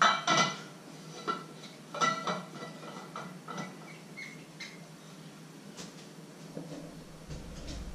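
A run of short squeaks and clicks from kitchen items being handled on a worktop. The loudest come right at the start and about two seconds in, and they thin out after about four seconds. A steady low hum runs underneath.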